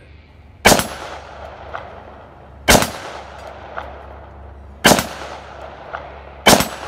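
Four gunshots about two seconds apart, each a sharp crack that rings out with echo, and a faint tick between shots.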